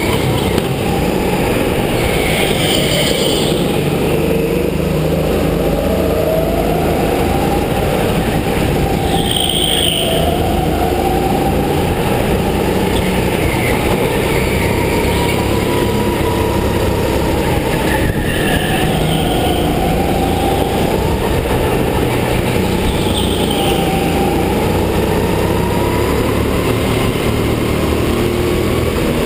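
Go-kart driven hard on a track, heard from the driver's seat: a steady rumble with a motor whine that rises and falls with speed through the corners, and short high tyre squeals every several seconds.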